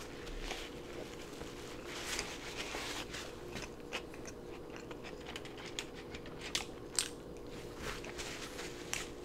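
Close-miked mouth sounds of a man chewing a mouthful of taco, with scattered soft clicks and smacks. A faint steady hum runs underneath.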